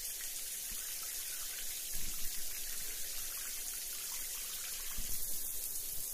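Steady water-like hiss, strongest in the treble, with soft low thumps about two seconds in and again near the end.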